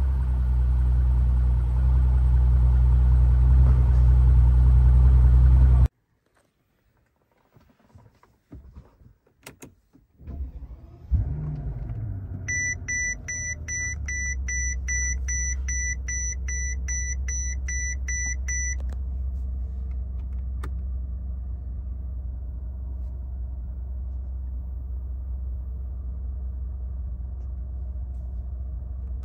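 Mercedes-Benz S65 AMG's twin-turbo V12 settling from a rev into a steady idle, until the sound cuts out abruptly. After a few faint clicks the engine starts again with a short rev flare and settles into a steady idle. For several seconds a warning chime beeps about twice a second over the idle.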